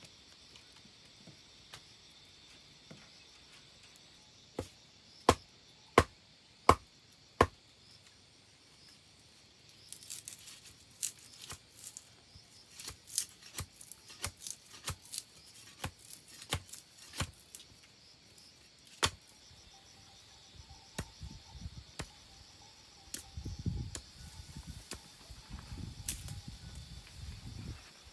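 Large knife chopping on a wooden plank: five loud, evenly spaced strikes, then a faster run of lighter chops. Insects chirr steadily throughout, and there are softer low knocks and rustling near the end.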